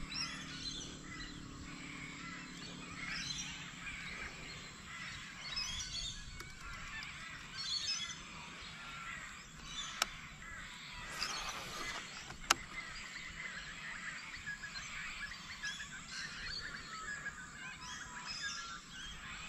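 Birds calling and chirping from the riverbank trees, with a couple of sharp clicks about ten and twelve and a half seconds in.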